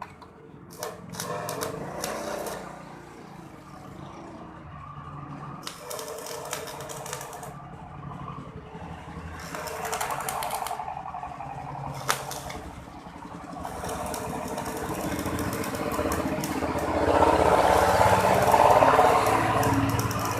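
Electric welding arc crackling and sputtering in several bursts, the last one long and getting louder, over a low steady hum.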